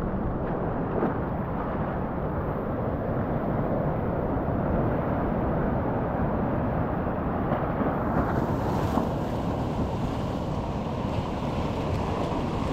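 Wind buffeting the microphone over the steady wash of ocean surf, turning hissier about two-thirds of the way in.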